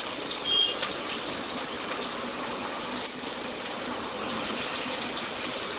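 Chopped onion sizzling steadily in hot oil and ghee with whole spices in a pan, with a brief clink about half a second in.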